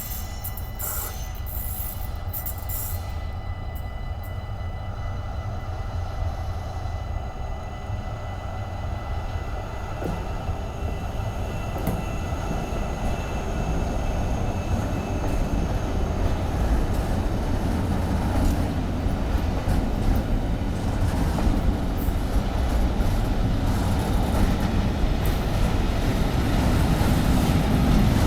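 Freight train of rail tank wagons rolling past, the rumble of wheels on the rails growing louder toward the end, with a faint steady high whine over it.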